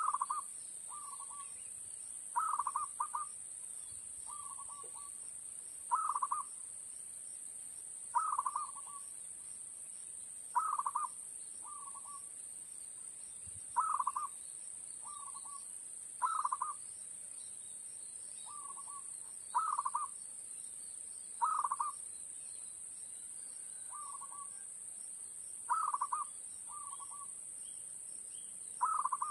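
Zebra dove (perkutut) cooing: short rolling bursts of quick notes repeated every two to three seconds, a louder coo often answered by a softer one about a second later. A steady high-pitched hiss runs behind.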